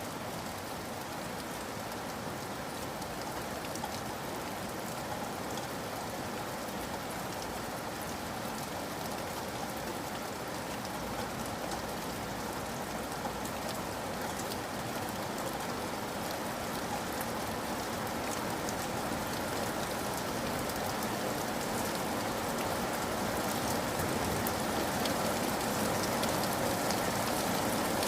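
Steady rain falling, an even hiss with scattered drop ticks, growing slightly louder toward the end.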